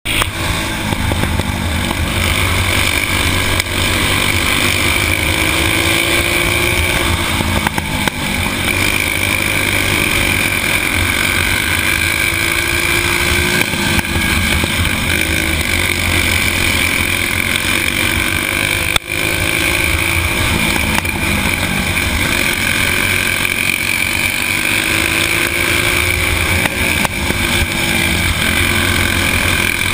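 Stock four-stroke racing kart engine running hard at high revs, heard from onboard. Its pitch rises and falls gently as the kart goes around the track.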